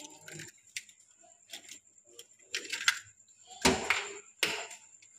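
An eggshell being cracked and pried apart by hand over a stainless steel bowl: a series of small cracks and taps, the loudest about three and a half seconds in.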